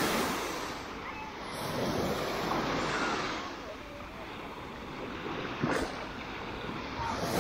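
Small waves breaking and washing up on a sandy Black Sea beach, swelling and ebbing every few seconds, with a short sharp knock near the end.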